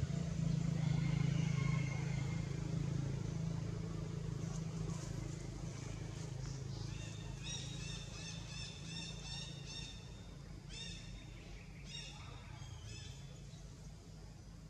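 A low engine-like drone fades over the first few seconds. From about halfway in come several quick runs of short, high chirping animal calls, a few a second, with shorter bursts near the end.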